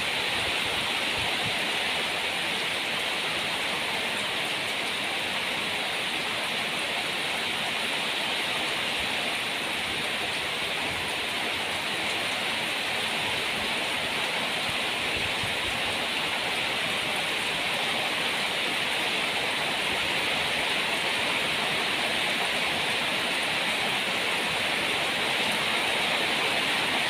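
Heavy rain pouring steadily, an even unbroken rush that grows slightly louder near the end.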